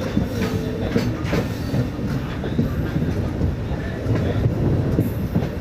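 MEMU electric multiple-unit train running on the rails: a steady rumble with irregular clicks of the wheels passing over rail joints.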